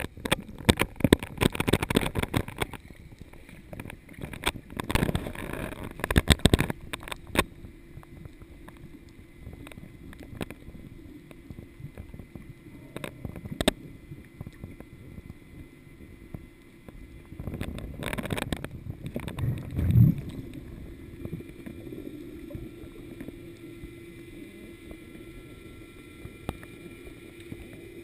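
Underwater sound picked up through a camera's waterproof housing: a dense run of clicks and crackles with bubbles for the first several seconds, then a steady low hum with occasional bubbling gurgles. A deep whoosh of bubbles about twenty seconds in is the loudest moment.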